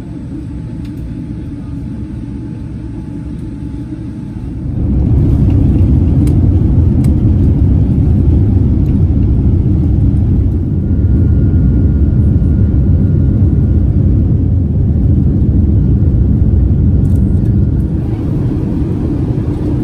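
Jet airliner cabin noise: steady low engine and airflow noise that jumps sharply louder about five seconds in as the engines come up to takeoff power, then holds steady and eases slightly near the end.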